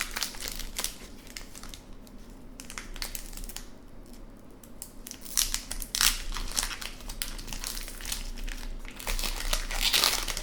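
Plastic hockey card pack wrapper being torn open and crinkled by hand, in irregular crackles that grow louder about halfway through and again near the end.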